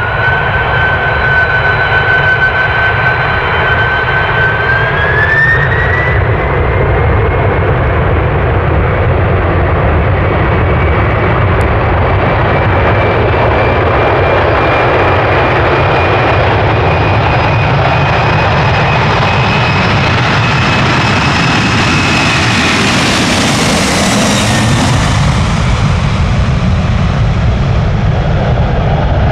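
Boeing 767's twin turbofan engines at high thrust on departure, with a loud rumble throughout. The engine whine climbs in pitch about five seconds in, holds, then slides down in pitch after about twenty-two seconds as the jet goes past.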